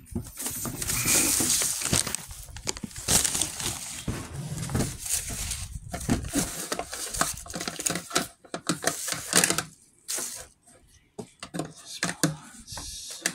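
LEGO minifigure blind bags being torn open and crinkled in the hands, rustling on and off, with a short lull about ten seconds in.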